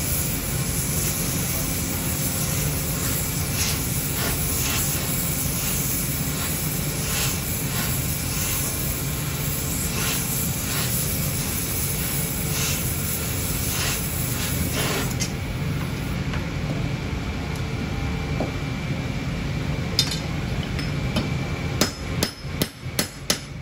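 A gas torch hisses steadily as it heats a steel strip, the hiss stopping about fifteen seconds in. Near the end a hammer strikes the hot strip on a steel block, a quick run of sharp metal blows.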